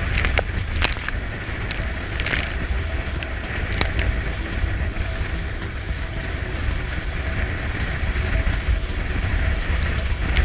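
Wind buffeting the microphone and water rushing past the hull of a Weta trimaran under sail, with scattered sharp slaps and clicks.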